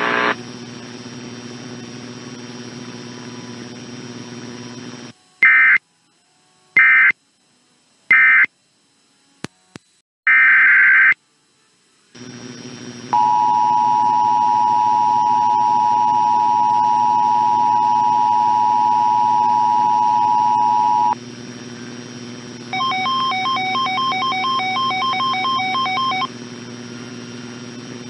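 Emergency Alert System tones. Three short screeching bursts and then one longer burst of digital data, followed by the steady two-note EAS attention signal held for about eight seconds. Near the end comes a few seconds of rapid pulsed beeping over a low broadcast hum.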